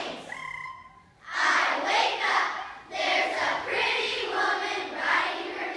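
A group of children speaking a piece together in unison, in chanted phrases with short breaks between them.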